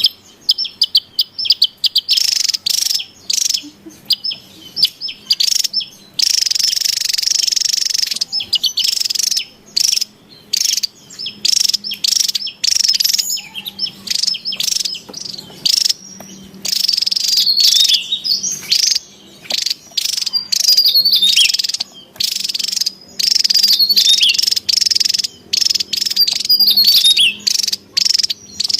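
Javan tesia calling busily: rapid runs of high, sharp chirps and short trills, with brief gaps between runs.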